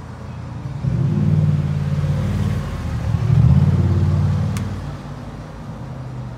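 A motor vehicle's engine running close by, swelling twice in a low, pitched rumble over about four seconds before dropping back to the street background.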